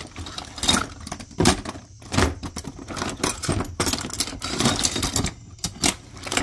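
Loose metal hand tools (vice grips, wrenches, sockets) clinking and clattering against each other as a hand rummages through them in a plastic toolbox, a run of irregular clinks several times a second.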